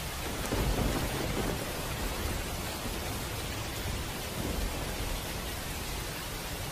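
Eating sounds of spicy meatball soup with noodles, close to a clip-on mic, over a steady hiss. The eating is loudest about half a second in and again around four and a half seconds.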